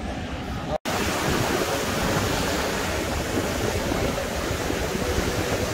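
Steady rushing noise of ocean surf and wind, with a brief cut to silence a little under a second in.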